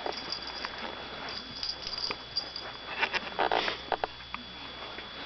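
Dog sniffing in short breathy bursts, the loudest about three and a half seconds in, among scattered light clicks.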